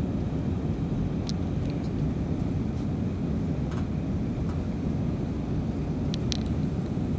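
Steady low rumble of a jet airliner, with a couple of faint short clicks.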